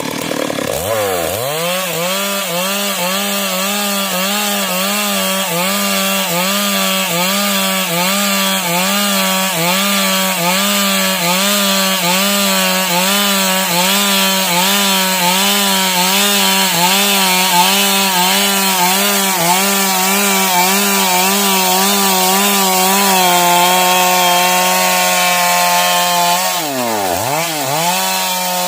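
Two-stroke chainsaw at full throttle rip-cutting a log lengthwise, its engine pitch rising and falling in a steady rhythm a little more than once a second under the cutting load. Near the end the pitch holds steady, then dips sharply once and climbs back.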